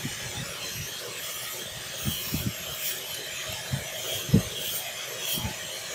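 A hand tool scraping and rasping at the edge of a phone circuit board as a corner panel of the board is cut away, with a few soft knocks, the sharpest about two-thirds of the way through.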